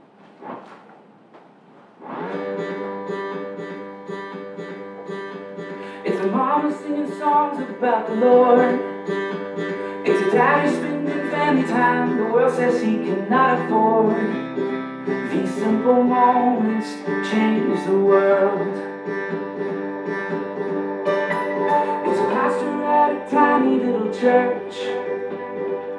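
Guitar-accompanied music that comes in about two seconds in with held chords, then grows louder with a moving melody from about six seconds.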